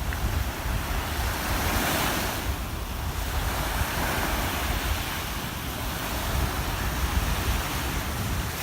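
Black Sea waves breaking and washing up a beach, the surf swelling about two seconds in and again a little later, with a low rumble of wind on the microphone underneath.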